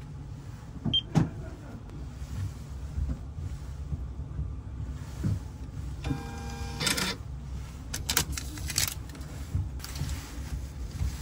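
Library self-checkout machine: a short buzzy electronic beep about six seconds in as the checkout button on its touchscreen is tapped, followed by a few sharp clicks and rustling, over a low steady background hum.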